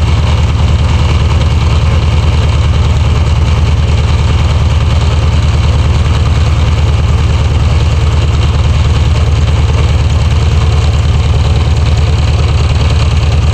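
Air-cooled Volkswagen Beetle (Type 1) flat-four engine idling steadily, with an abnormal noise from around the alternator pulley, which the owner links to an off-centre pulley.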